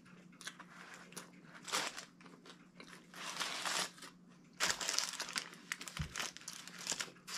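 Sandwich paper wrappers crinkling in several short spells as the hoagies are handled, with chewing between.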